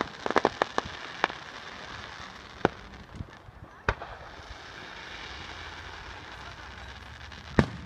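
Aerial fireworks shells bursting in sharp bangs: a quick cluster of about five just after the start, then single bangs a second or more apart, with the last near the end.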